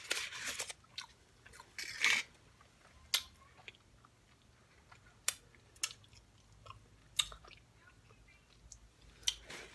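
Close-up eating sounds: chewing and biting food, with short sharp clicks and smacks scattered through and quiet gaps between them.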